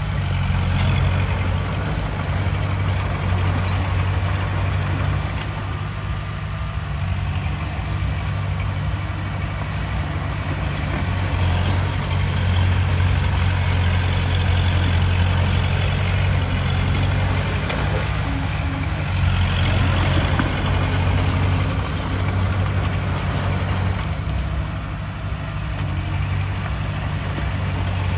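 Heavy diesel earthmoving machinery running steadily, its deep engine note swelling and easing as the machines work.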